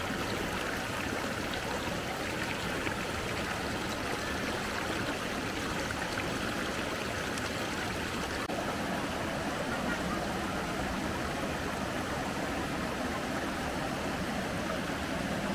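River water flowing steadily, a continuous even rush.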